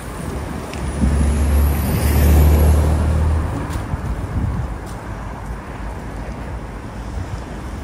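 A motor vehicle passing close by on a city road, its low engine drone loudest from about one to three and a half seconds in, with a faint high whine rising and falling as it goes by, over steady traffic noise.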